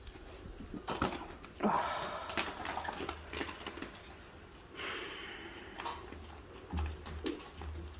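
Scattered light knocks and clicks with brief rustling scuffles, the sounds of a cat being let in and moving about the room.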